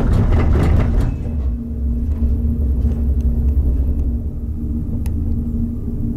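Cabin of a Montaz Mautino detachable gondola riding along the haul rope, heard from inside: a steady low rumble with a steady hum. In the first second there is a brief rattling clatter as the cabin's grip rolls off the tower sheaves, and a single click comes about five seconds in.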